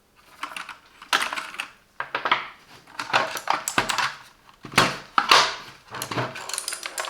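Hard plastic clatter of a semi-mechanical gaming keyboard and its cable being handled and turned over: a run of irregular knocks and rattles.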